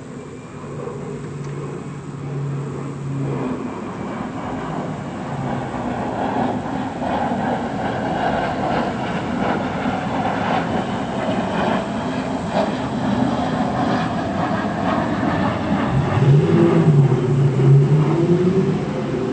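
Vehicle engine and road noise, growing steadily louder, with a low pitch that wavers up and down near the end.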